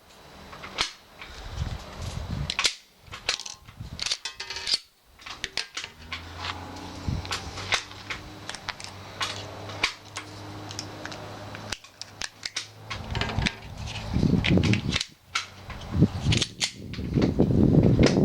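Pistol shots fired in irregular strings, sharp cracks of differing loudness, from a Glock 42 .380 semi-automatic being test-fired. A louder rushing noise sets in near the end.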